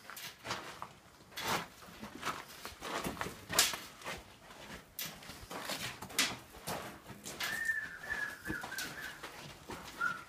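Footsteps crunching on the gravelly sand floor of a slot canyon, at a steady walking pace of about two steps a second. About seven and a half seconds in, a thin, drawn-out whistled note sounds for about a second and a half, dropping slightly in pitch.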